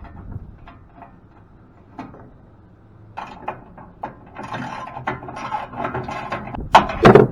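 Metal machine parts being worked by hand while taking the equipment apart: a few light clicks, then scraping and rattling from about three seconds in, with two sharp loud knocks near the end.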